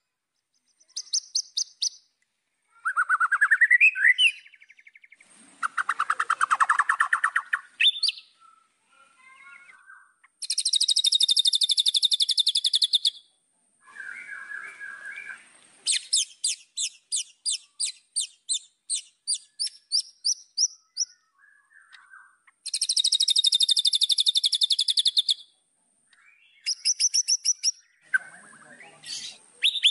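White-rumped shama singing a varied song in phrases separated by short pauses: rising whistles, long, fast, high-pitched trills, and a run of sharp notes at about four a second.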